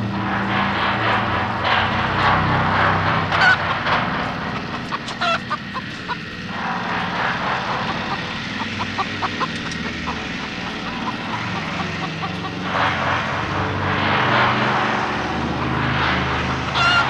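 A droning horror film score of low sustained hums and scraping noise. A chicken clucks and squawks over it, with short shrill squeals a few seconds in.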